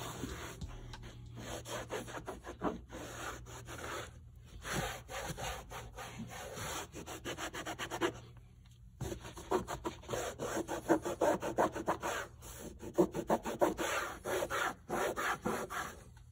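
A microfiber towel rubbed quickly back and forth over a Ford Explorer's plastic door sill plate, a rapid run of scrubbing strokes. It pauses for about a second about eight seconds in, then carries on.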